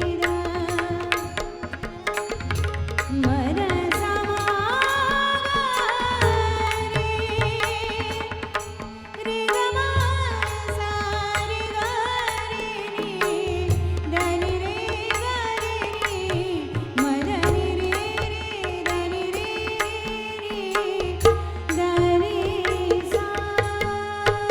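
A woman singing a gliding melody, accompanied by tabla and pakhawaj drum strokes.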